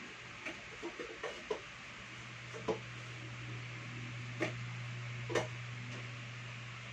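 Light knocks and clinks of kitchenware being handled on a small table, about eight in all, clustered in the first couple of seconds and then spaced out, the loudest a little over five seconds in. A steady low hum runs underneath.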